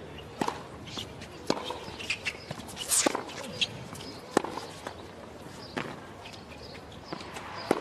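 Tennis rally on a hard court: sharp racket strikes on the ball and ball bounces, one every second or so, over a steady arena background.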